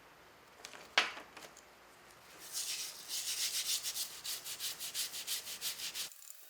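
A sharp knock about a second in, then quick, repeated rubbing strokes of an abrasive worked by hand over a surface, about four strokes a second. The strokes stop abruptly near the end.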